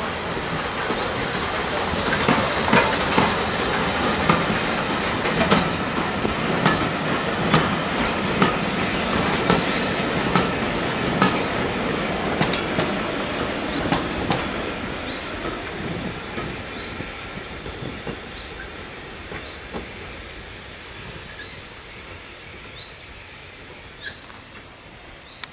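Small saddle-tank steam locomotive and its train of vintage wooden carriages passing close by, with steam hissing and the wheels clicking over the rail joints about once a second. The sound fades steadily in the second half as the train pulls away.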